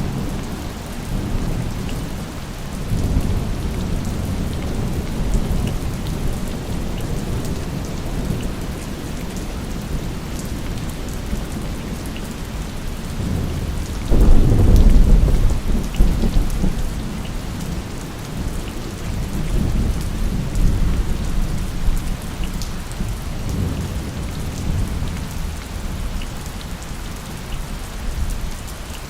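Steady heavy rain with rumbling thunder rolling in and out. The loudest thunder rumble comes about halfway through and lasts a couple of seconds.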